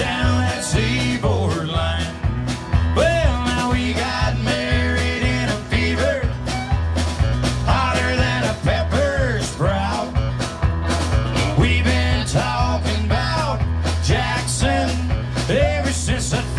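Live country band playing a song with a steady beat: acoustic guitar, electric bass, drums, fiddle and electric guitar.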